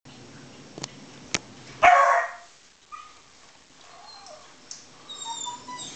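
A beagle barking once, loudly, about two seconds in, after two sharp clicks; fainter sounds follow.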